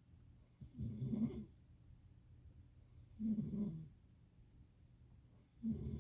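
Snoring: three snores, each under a second long, coming regularly about every two and a half seconds.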